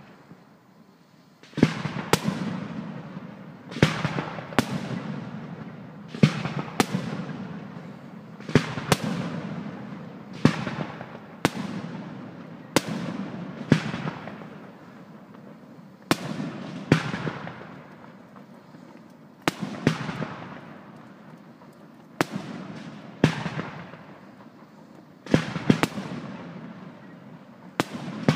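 Aerial firework shells bursting one after another. Each sharp bang is followed by a rumbling echo that dies away over a second or so, with bursts coming every second or two and often two bangs close together.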